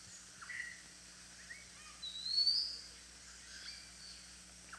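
Faint birdsong: one clear rising whistle about two seconds in, with a few short, softer chirps around it, over a low steady background hum.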